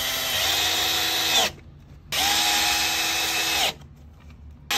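Cordless drill driving screws through a steel door hinge into wood, running in separate bursts with a steady motor whine: one run ends about a second and a half in, a second lasts about a second and a half, and a third starts right at the end.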